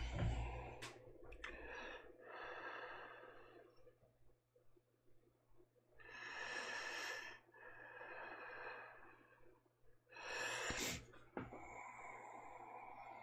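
A man breathing audibly near the microphone: several slow breaths, each about a second long, with a short click a little before the end.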